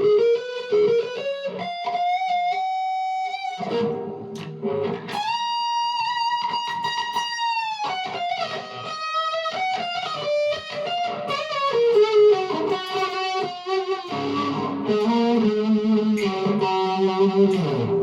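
Electric guitar played through a Zoom G1Four drop-tuned patch, a Behringer OD300 overdrive pedal and a Vox MV50AC amp, playing a melodic lead line of single notes with slides. Around the middle there is one long held note with slight vibrato.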